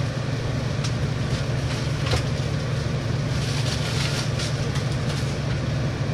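A steady low hum from an air conditioner running, with plastic packaging bag crinkling and cardboard box flaps rustling in irregular bursts as the toilet is handled and lifted out of its box.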